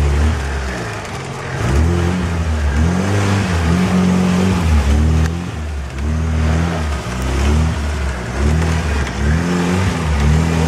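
Suzuki Grand Vitara's engine revved again and again, its pitch rising and falling every second or so, as the stuck vehicle tries to drive up out of a muddy ditch.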